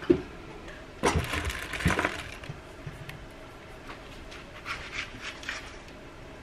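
Handling noise as a camera is picked up, carried and set down on a kitchen counter: a knock at the start, a rattling clatter about a second in, and a few light clicks near the end.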